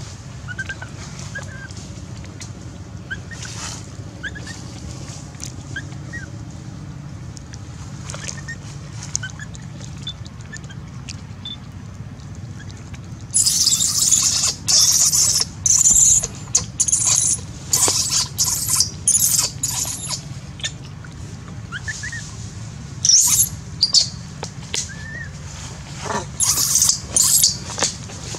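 Baby macaque crying. From about halfway through it gives a string of loud, shrill screams in short bursts, one after another, with a second cluster near the end.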